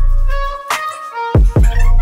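Background music with a beat of deep, punchy bass-drum hits under held melodic notes.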